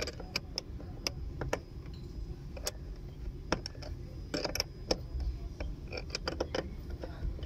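Irregular metallic clicks and clinks of a 14 mm spanner being worked on a Suzuki Mehran's handbrake cable adjuster nut, with pliers gripping the cable rod. The nut is being tightened to take up slack in a loose handbrake cable.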